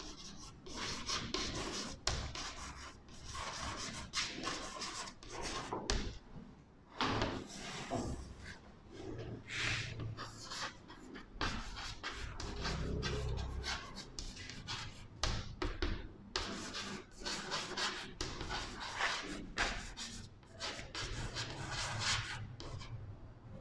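Chalk writing on a blackboard: a long run of short, irregular scratching strokes as words are written out letter by letter.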